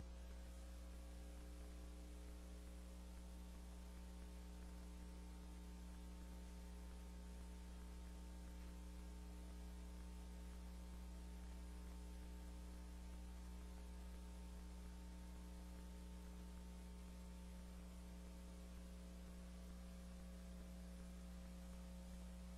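Near silence apart from a faint, steady electrical mains hum with a light hiss underneath.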